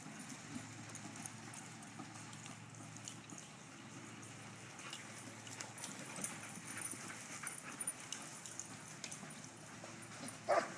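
Dogs moving about, with scattered light clicks and taps, and a short dog whine near the end.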